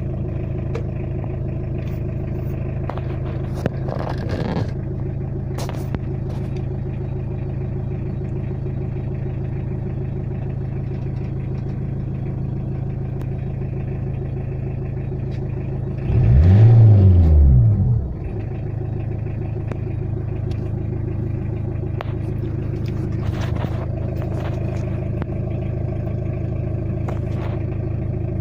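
Tata Indica diesel engine idling steadily and evenly, its rough idle cured by a calibrated injection pump. About halfway through it is revved once, briefly, rising and falling in pitch, then settles back to idle.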